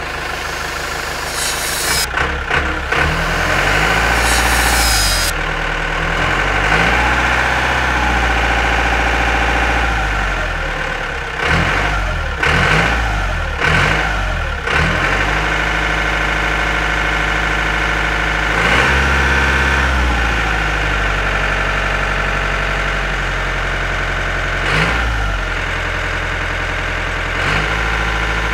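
Tractor engine running, its pitch stepping up and down repeatedly as it revs and settles. A hiss sits over it from about two to five seconds in.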